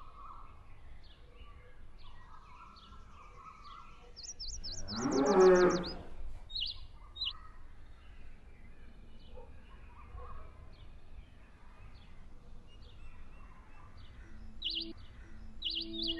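Birds chirping in short, scattered calls. About four seconds in comes a loud, low animal call lasting about a second and a half, with a rapid bird trill over it.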